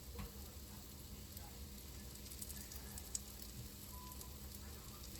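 Pancake batter sizzling faintly in a hot pan, a steady frying hiss with scattered small crackles.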